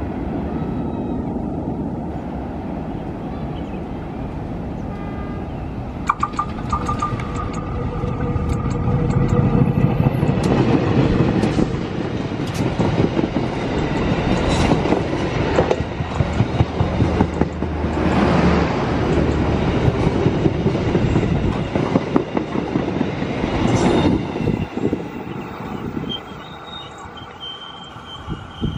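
Diesel-electric locomotive-hauled passenger train passing close by: first a steady engine rumble, then from about six seconds in a louder run of wheels clattering over rail joints as the coaches go past. The sound fades in the last few seconds as the train moves away.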